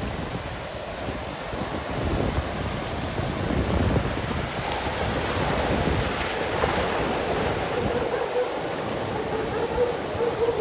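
Surf washing onto a sandy beach, small waves breaking and foaming at the shoreline, with wind buffeting the microphone in gusts.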